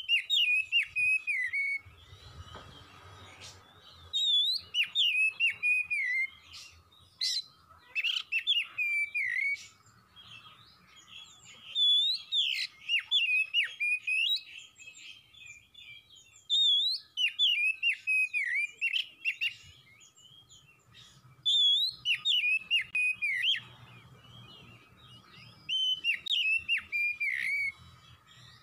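Oriental magpie-robin singing: loud phrases of varied whistled notes that slide up and down, coming in bursts every few seconds with short pauses between.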